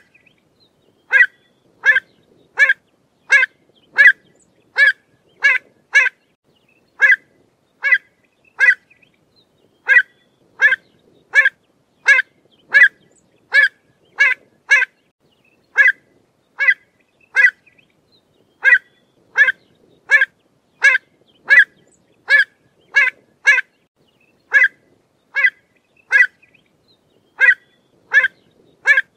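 Pied avocet calling: a long series of short, loud calls repeated about one to two a second, with a few brief pauses.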